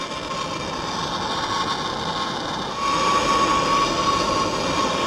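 Handheld gas torch flame hissing steadily as it heats a factory subframe cradle bushing until the bushing smokes and oozes. The hiss, with a faint steady whistle, grows louder about three seconds in.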